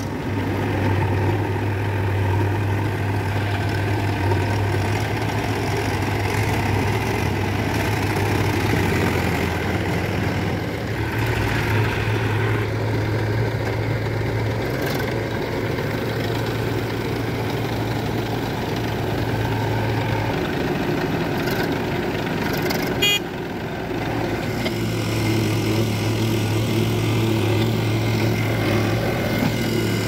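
Diesel tractor engines running steadily with a low, even hum. About 23 seconds in there is a brief click and a short dip in the sound.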